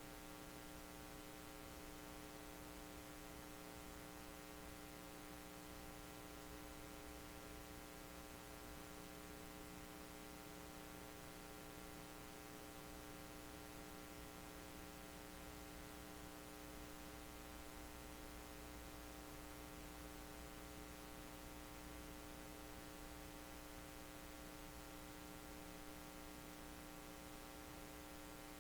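Faint, steady electrical hum with a light hiss, made of several steady tones; nothing else happens.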